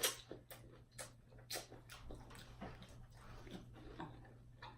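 Close-up mouth sounds of someone chewing fried food: irregular soft wet clicks and smacks, a few louder than the rest, over a faint steady hum.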